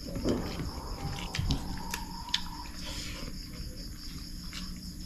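Crickets trilling in a steady chorus, with a few faint clicks.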